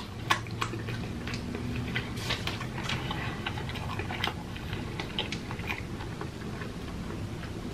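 Close-miked chewing of KFC fried chicken: irregular crunches and wet mouth clicks, the sharpest right at the start, over a low steady hum.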